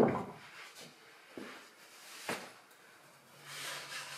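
Wooden parts of an old farmhouse cupboard being handled: a knock and rattle as the compartment divider is gripped, a sharp wooden click a little after two seconds, and a short wood-on-wood scrape near the end as a hand reaches into the compartment.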